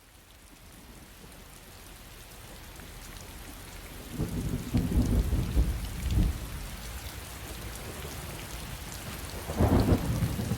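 Steady rain fading in, with two rolls of thunder: a longer rumble starting about four seconds in and a shorter, sharper one near the end.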